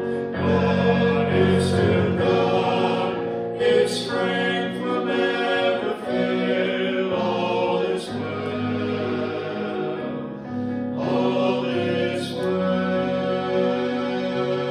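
A small group of voices sings a worship song in harmony over held chords from a Korg electronic keyboard.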